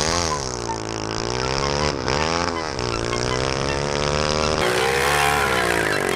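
Honda 240cc single-cylinder, air-cooled four-stroke engine, a big-bore CRF230 dirt-bike engine with a performance cam, running hard in a go-kart. Its pitch dips and climbs several times in the first few seconds as the throttle is worked, then holds steadier.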